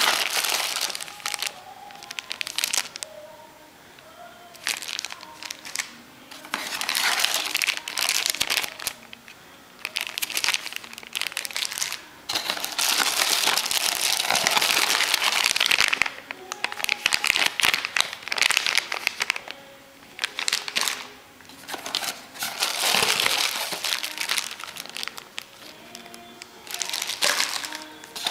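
Plastic bags around phone accessories crinkling as hands rummage in a cardboard box, in bursts with quieter gaps, the longest lasting several seconds.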